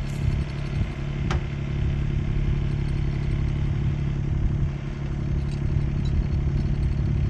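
Kymron XH20D mini-excavator's engine running steadily, with a single sharp knock about a second in.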